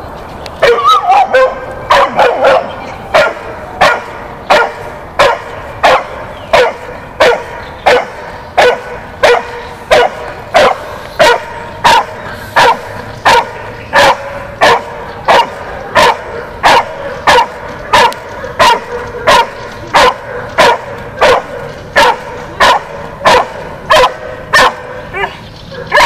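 Doberman barking steadily and rhythmically at a helper hidden in a blind, about one and a half barks a second after a quicker flurry as it arrives. This is the bark-and-hold stage of an IPO protection routine.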